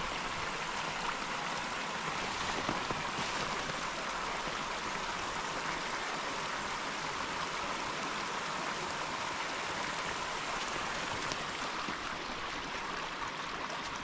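Small woodland creek running steadily over stones and a low rocky step, a constant even splashing trickle.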